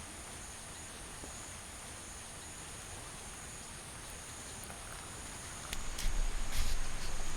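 Insects chirring steadily in two high, even tones over a constant rushing hiss of a mountain stream. About six seconds in, a short louder stretch of low rumbling with a few sharp knocks.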